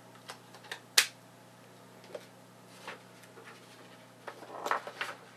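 Sharp plastic clicks and taps from handling a marker-ink airbrush and its felt-tip markers, the loudest click about a second in and a quick cluster of clicks near the end. A low steady electrical hum runs underneath.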